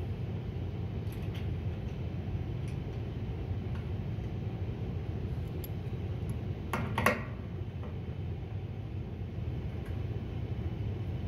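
Small metallic clinks and taps of hand tools, a hex key and pliers, against the metal sensor bracket as it is adjusted and tightened, with a louder cluster of clinks about seven seconds in. A steady low hum lies underneath.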